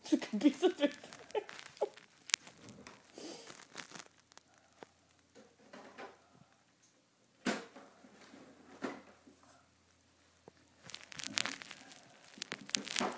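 Home inkjet printer being worked at by hand, its plastic parts clicking and knocking and paper rustling, as a paper jam is cleared. One sharper knock comes about halfway through, and a denser run of clicks comes near the end.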